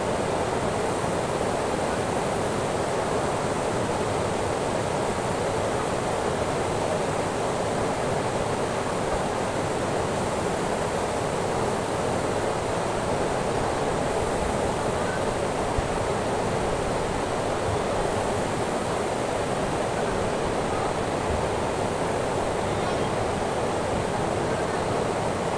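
Steady rushing of a flowing river, an even noise that does not rise or fall.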